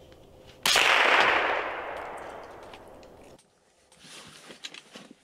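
A single shot from a Ruger 10/22 semi-automatic .22 LR rifle, about half a second in, with a long fading echo that cuts off abruptly. Quieter rustling and a few small clicks follow.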